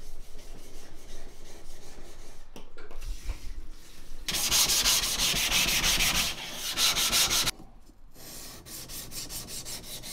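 Gritty back-and-forth scraping of a coarse Shapton #120 whetstone, rubbed under flat hands, loudest for about three seconds from just past the middle. After a short break near the end it turns into quicker, lighter strokes of a steel yanagiba blade across the stone.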